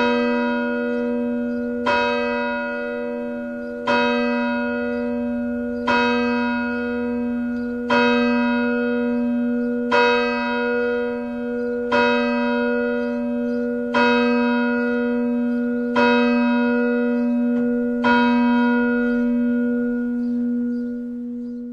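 A single church bell tolling, struck about every two seconds for about ten strikes. Each strike rings on, and a steady hum carries through between strikes.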